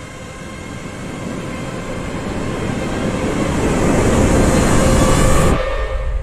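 Film sound effect of a nuclear blast wave: a roar of rushing noise over a held drone, swelling steadily louder for about five seconds, then cut off abruptly, leaving a low rumble.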